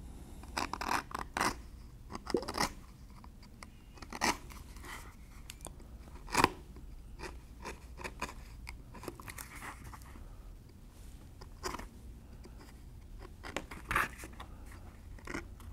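Hand edge beveler shaving the cut edge of a stitched leather holster: a series of short, irregular scraping strokes, the sharpest about six seconds in and near the end.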